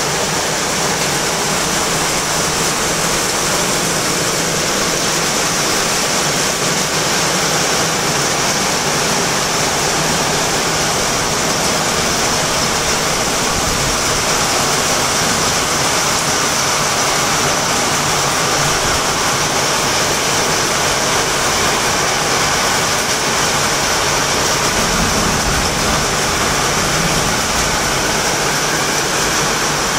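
Torrential rain falling steadily, a dense, even rush of noise that does not let up.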